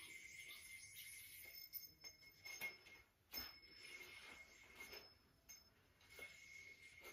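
Faint sounds of a Bill Special yo-yo being played on its string: a steady faint whir while it spins, with a handful of light clicks and taps scattered through as it is caught and lands.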